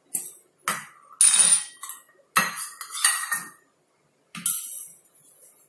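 Metal kitchen utensils clinking and clattering: about six separate sharp knocks, some ringing briefly, typical of a steel container and spoon being handled while ghee is fetched.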